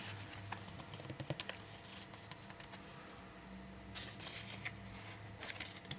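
Oracle cards being handled and flipped: soft, quick clicks and rustles of card stock sliding over card, with one sharper tick about four seconds in.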